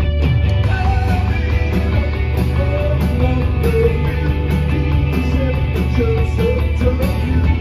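Rock band playing live: distorted electric guitars, bass guitar and drums at full volume, with a guitar line bending in pitch over the steady beat.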